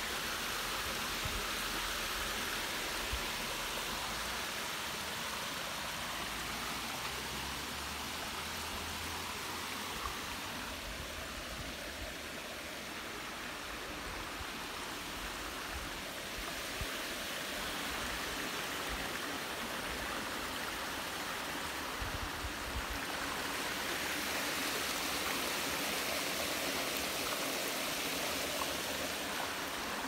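Stream water rushing down a cobbled stone spillway and small cascades: a steady, even rush, swelling a little in the last third.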